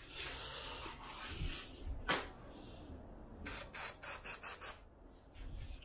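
Aerosol can of 3M Hi-Strength 90 spray adhesive hissing: two long sprays, a single click, then a quick run of about six short bursts.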